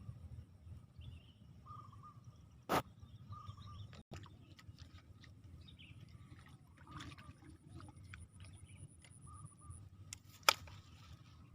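Faint outdoor ambience with a low rumble, broken by two sudden, sharp, short sounds: one a few seconds in and a louder one near the end.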